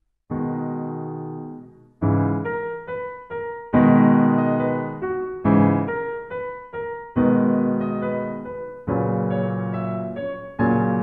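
Piano music: slow chords struck about every second and a half to two seconds, with single notes between, each ringing and fading.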